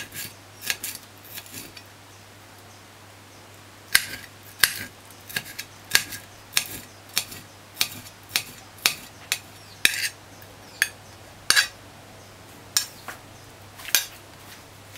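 Kitchen knife chopping pepper on a ceramic plate: the blade strikes the plate in sharp clicks, a few at first, then after a short pause a run of them at about two a second.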